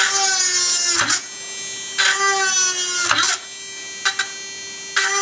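Small 5–6 V DC mini electric hand drill running with a high whine while drilling into a plastic case. It gets louder in stretches of about a second, three times, and dips briefly in pitch about a second in and again just after three seconds, as the bit bites into the plastic.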